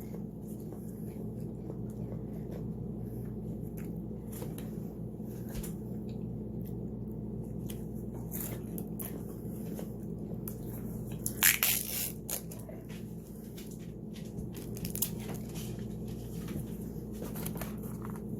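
A person biting and chewing fast food close to the microphone, in scattered wet clicks and crunches over a steady low hum. The loudest few bites come about two-thirds of the way through.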